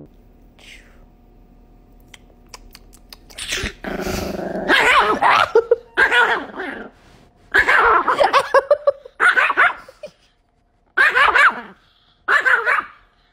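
Small white spitz-type dog barking and growling in repeated fits, starting about three and a half seconds in after a quiet start.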